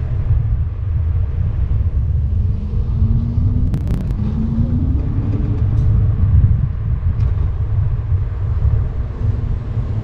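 Loud low wind and road rumble on the microphone of a moving electric scooter, with a short rising whine twice and a sharp click about four seconds in.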